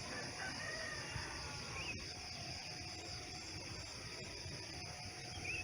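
Steady high insect buzz with two short bird chirps, one about two seconds in and one near the end.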